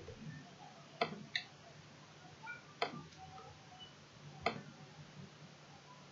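A few sharp clicks from a computer mouse and keyboard: two close together about a second in, then single clicks near three seconds and four and a half seconds, over a low room hum.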